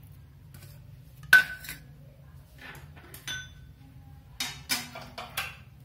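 Metal kitchen utensils and vessels clinking and clattering. There is a sharp, ringing clink about a second and a half in, a lighter ringing clink around three seconds in, then a short run of clattering knocks near the end.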